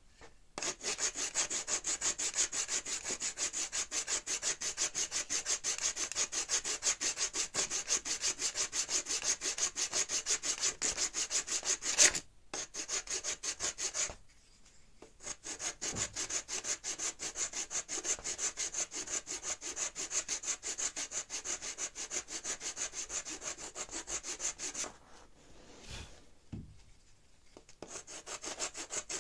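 Rapid, even back-and-forth strokes of an abrasive-faced wooden stick rubbing along the steel edge of an axe head as it is honed, about six strokes a second. A sharp click about twelve seconds in ends the first run. The strokes pause for a couple of seconds, run again, and thin to a few scattered rubs before picking up near the end.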